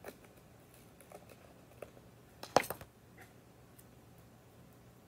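Light clicks and rustles of hands peeling and pressing vinyl letter stickers onto a canvas, with one sharp tap about halfway through.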